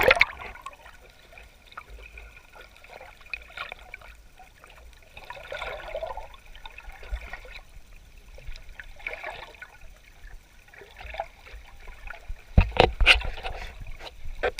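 Water lapping and trickling in small uneven surges, with a louder burst of splashing near the end.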